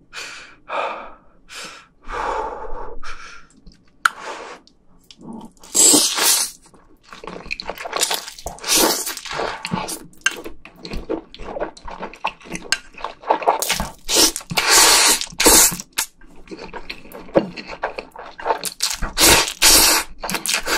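Close-miked slurping and wet chewing of spicy stir-fried ramen noodles, with several long loud slurps and smaller smacking clicks between them.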